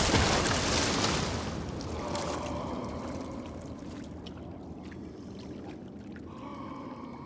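Sea water splashing and sloshing around a swimmer who has just surfaced. The rush fades over the first couple of seconds to quiet lapping with small droplet splashes.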